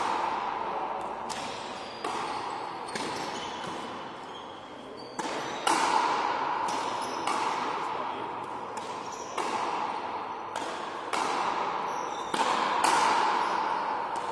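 Frontenis rally: the rubber ball is struck by strung rackets and smacks against the frontón's front wall, sharp cracks every second or so, each ringing on in the hall's long echo.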